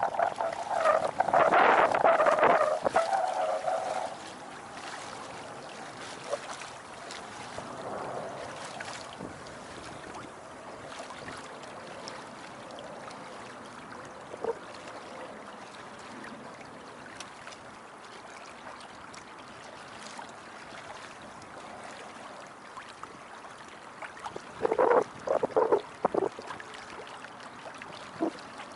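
Water trickling and rushing along the hull of a Beneteau First 20 sailboat under way. The first few seconds are louder, and there is a brief cluster of short, louder sounds near the end.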